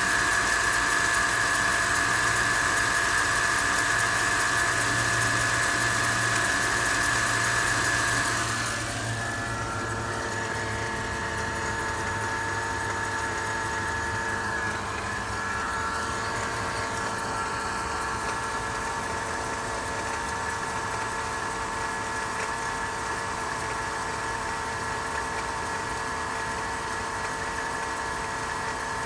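Mercedes M273 V8 idling after a cold start, with a steady high-pitched rubbing note from the accessory belt drive. The owner suspects the belt or its idler pulleys. About eight seconds in, the sound gets quieter and the high hiss falls away.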